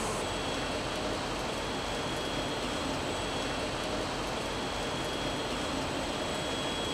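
Steady machinery noise of an electric-motor production line, an even hiss and rumble with a faint high steady whine over it.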